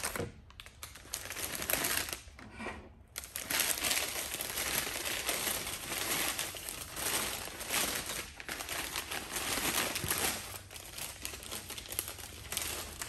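Newspaper crinkling and rustling as it is pulled apart by hand to unwrap a camera, with a short pause about two and a half seconds in.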